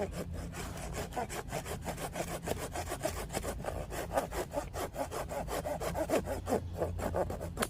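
Hand saw cutting through a piece of firewood in quick, even back-and-forth strokes, stopping near the end.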